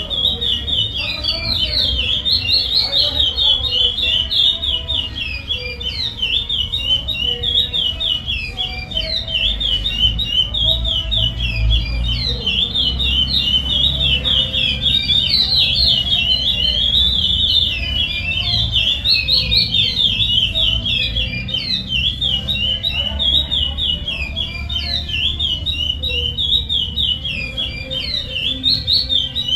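Chestnut-bellied seed finch (curió) singing steadily, a rapid, unbroken run of high, quickly sweeping notes in the Paracambi song type.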